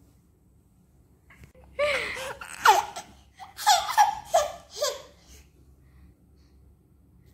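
An 11-month-old baby boy laughing in several short, high-pitched bursts, from about two seconds in until about five seconds in.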